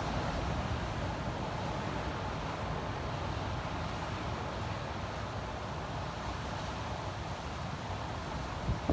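Wind buffeting the phone's microphone over the steady rush of surf breaking along a beach, with a short louder bump right at the end.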